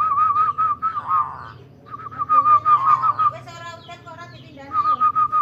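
Zebra dove (perkutut) song: three runs of quick, rippling trilled notes, with a brief harsher note between the second and third runs.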